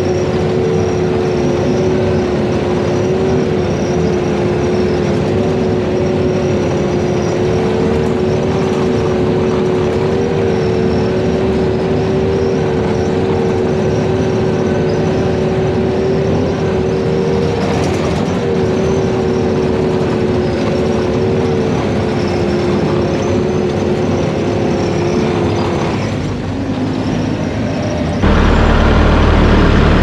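Case 320TR tracked skid steer driving along a dirt track, heard from the operator's seat: the engine runs steadily under a constant two-note whine. A couple of seconds before the end the sound changes abruptly to a louder, deeper rumble.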